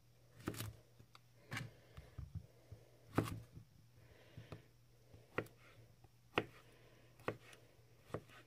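Böker Outdoor Cuisine III santoku knife slicing through a zucchini and striking an end-grain wooden cutting board, a short sharp knock with each cut. About seven knocks come at an uneven pace.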